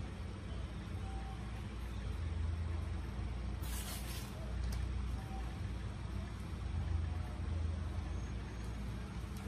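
Steady low background rumble with a short hiss about four seconds in.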